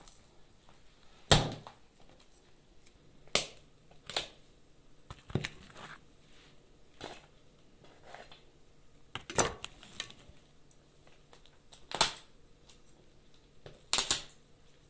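Kitchen shears snapping through lamb rib bones: a sharp crunch every one to three seconds, about eight in all, the last a quick double crack.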